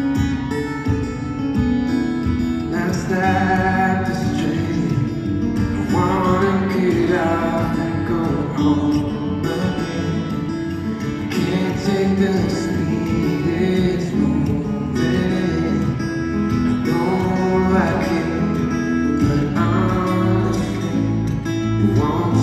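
A man singing live with a solo acoustic guitar, played through a large arena's sound system and heard from the audience. Sung phrases come and go over steady picked guitar.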